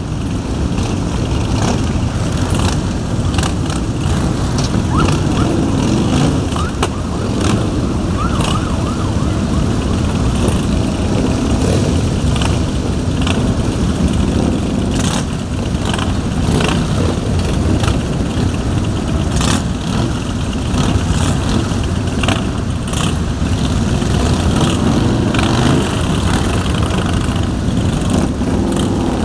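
Many motorcycle engines, mostly big touring bikes, running together as a long column rides past in a steady stream, with frequent short sharp clicks over the dense low engine sound.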